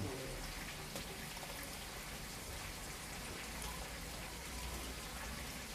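Hands kneading and squeezing a basket of freshly grated coconut: a faint, steady soft crunching patter.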